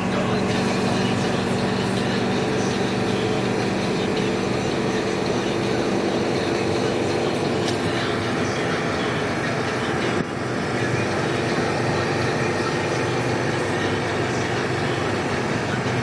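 Steady running noise of a vehicle on the move, heard from inside the cab: engine hum and road noise.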